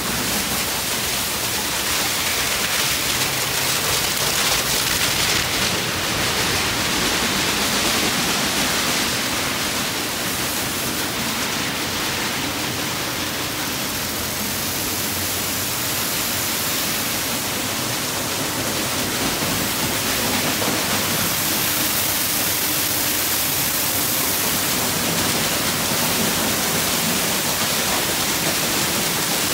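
Tunnel car wash running: water jets spraying onto a car and spinning cloth brushes scrubbing it, a steady rushing hiss like a heavy downpour.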